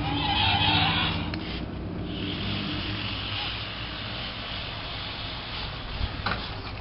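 Zoomer Dino remote-control robot dinosaur toy in action: a loud rasping sound in the first second or so, then its drive motor whirring steadily.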